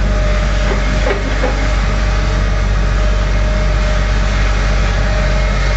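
JCB JS220 tracked excavator's diesel engine running steadily with a heavy low rumble as it works. A couple of brief faint squeaks come about a second in.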